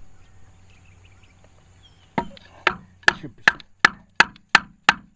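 Repeated sharp knocks of a length of timber used as a persuader, tapping a joiner onto a buried water pipe. The knocks begin about two seconds in and come about three a second, quickening slightly.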